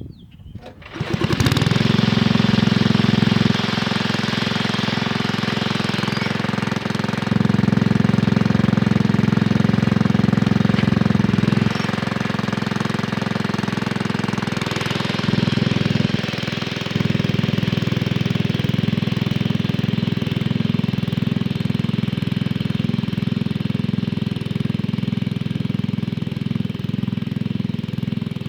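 1968 Sears Suburban 12 garden tractor's engine coming up to speed about a second in and then running hard while pulling an 8-inch turning plow, its level rising and falling several times as the load changes.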